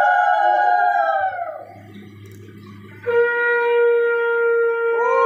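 Conch shell (shankha) blown in two long blasts. The first falls in pitch and dies away about a second and a half in; after a short gap the second starts about three seconds in on a lower, steady note.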